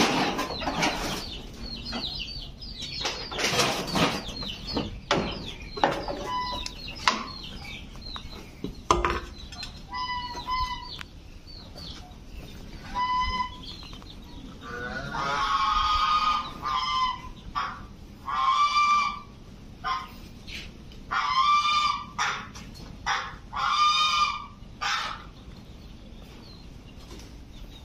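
Domestic poultry calling over and over: short calls at first, then a run of longer, louder honking squawks in the second half. In the first few seconds, bamboo poles rattle and knock as they are shifted.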